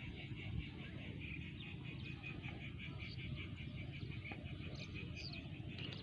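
Frog calling: a steady, rapid, high-pitched pulsed trill, over low background noise.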